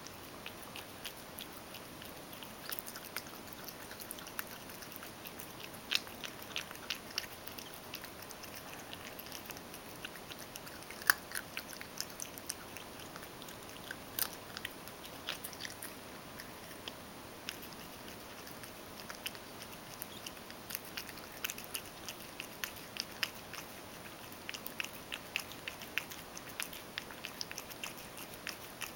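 Ragdoll cat chewing crushed dry kibble soaked in hot water from a stainless steel bowl: a steady run of small, irregular clicks from its mouth and teeth, with one sharper click about eleven seconds in.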